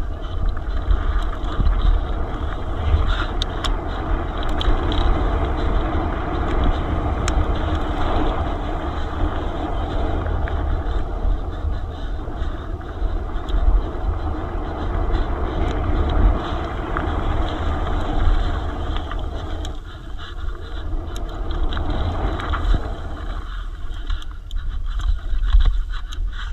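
Riding noise from an e-mountain bike on a downhill trail: wind rumbling on the microphone, tyres rolling over the ground and the bike rattling, with many small clicks and knocks throughout.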